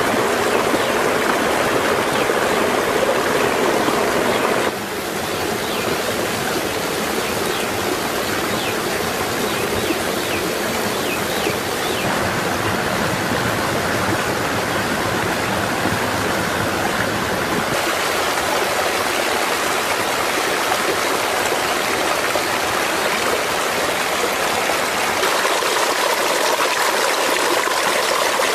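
Running water: a rocky forest stream rushing and splashing, with water pouring from a bamboo pipe spout. A steady rush whose tone changes abruptly a few times.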